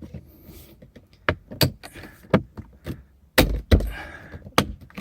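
Plastic door trim piece being pressed and snapped back into place on a car door: a series of about six sharp clicks and knocks, the loudest in the second half.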